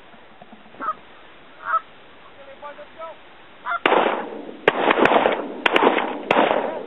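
Canada geese honking: a few faint, distant honks, then from about four seconds in a run of loud, harsh honks and clucks close by, one right after another.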